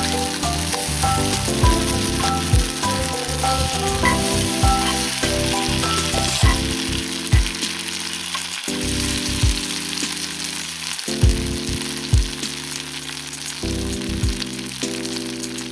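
Meat sizzling as it fries over a campfire, a steady hiss, under background music.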